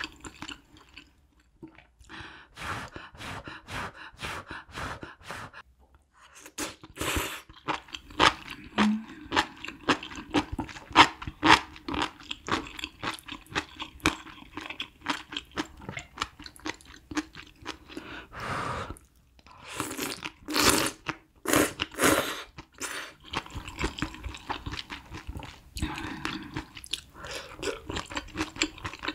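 Close-miked chewing of malatang ingredients, enoki mushrooms among them, in quick, wet, irregular crunches with a few short pauses. There is a cluster of louder bursts about two-thirds of the way through.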